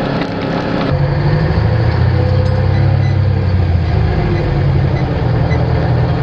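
Diesel engine of a Ford 10-wheeler truck running steadily, with a louder low drone from about a second in.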